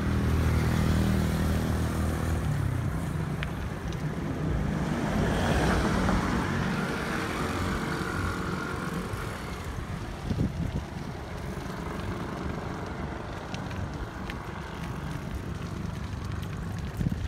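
Road traffic passing with wind on the microphone. An engine hum is strongest in the first few seconds, and another vehicle swells past about six seconds in.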